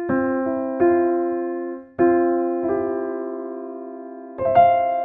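Electric-piano-like keyboard tones in just intonation sounding the severely flat fourth of the 21st harmonic, about 30 cents flat. Several notes and two-note chords are struck and left to fade, and the held interval wavers with a steady beating, the roughness of this wolf interval.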